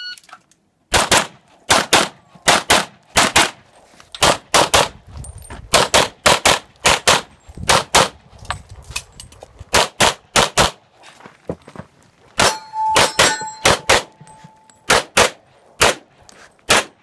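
A shot timer's start beep, then a USPSA stage run of pistol fire: rapid shots, many in quick pairs, with short breaks as the shooter moves between positions. About two-thirds of the way through, a steel target rings for a couple of seconds among the shots.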